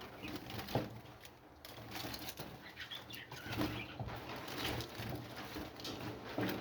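Birds flapping their wings in irregular flutters, with a few short calls.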